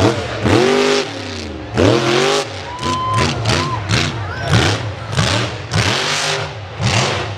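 Mud-bog truck engine revving hard and repeatedly, its pitch rising and falling again and again as the throttle is worked, with regular surges of hiss between revs.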